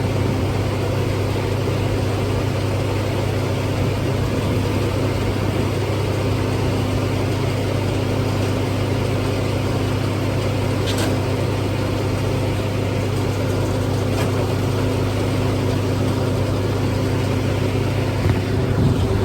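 Engine-driven feed grinder-mixer running steadily, grinding and mixing feed: an even, unchanging hum with a couple of faint clicks partway through.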